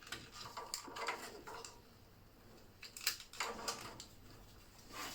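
Clicking, rattling and scraping of plastic power connectors being handled and pushed into a power supply tester, in two bunches: one in the first second or so, another about three seconds in.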